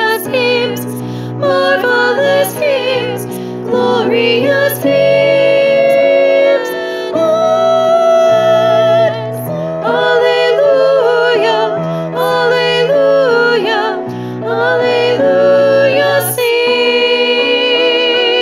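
Voices singing an Easter hymn with vibrato over keyboard accompaniment, closing on a long held chord near the end.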